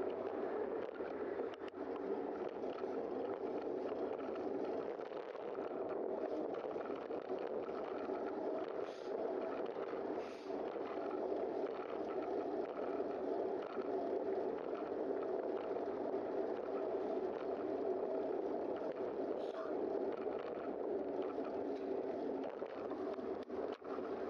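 Steady, muffled rush of wind and tyre noise picked up by a camera on a moving bicycle.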